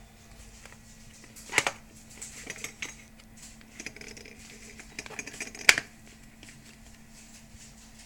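Small objects handled by hand: two sharp clicks or knocks, about one and a half seconds in and near six seconds, with lighter clicks and rustling between them, over the steady hum of a kitchen exhaust fan.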